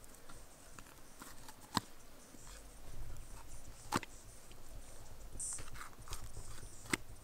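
Quiet handling sounds of a small goat being field dressed with a knife: the blade opening the belly skin, with three sharp clicks a couple of seconds apart and a low rumble starting about a third of the way in.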